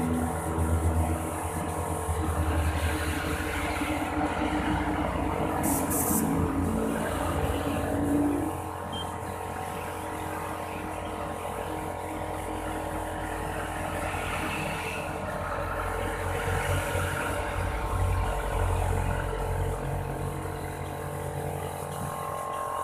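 A motor running steadily with a hum of several steady tones; part of the lower hum drops out about eight seconds in.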